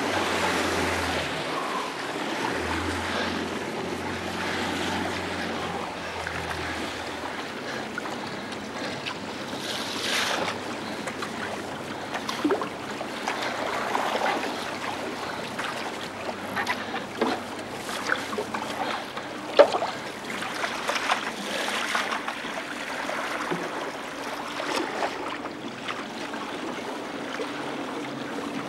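Motor launch's engine running low and going quiet about seven seconds in, leaving water lapping and splashing around the hull, wind on the microphone, and scattered short knocks and splashes.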